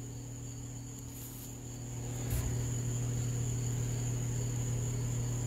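Crickets trilling steadily at a high pitch over a steady low hum, with a faint tap about two seconds in.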